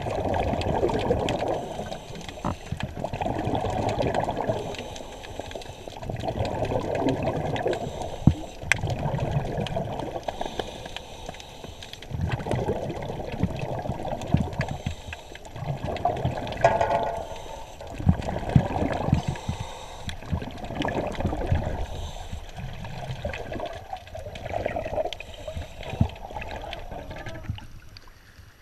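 Scuba regulator exhaust bubbles heard underwater: a gurgling rush of bubbles with each exhale, repeating every few seconds with quieter gaps between, about eight times, fading near the end.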